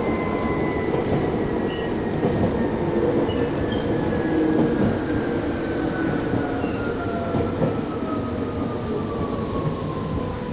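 Nagano Electric Railway 8500 series electric train heard from on board, its running noise overlaid with a motor whine that falls steadily in pitch as the train slows for a station stop.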